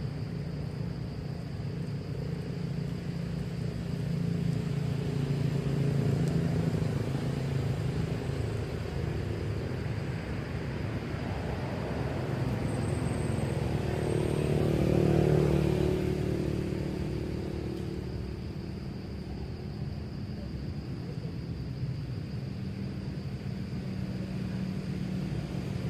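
Motor traffic running steadily, with one vehicle growing louder to pass about fifteen seconds in and then fading away.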